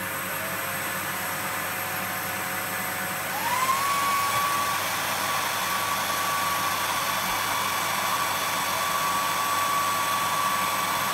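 A vacuum cleaner running steadily. About three and a half seconds in, a hair dryer joins it: the sound gets louder and a whine rises quickly to a steady high tone. Both run together until they stop abruptly at the very end.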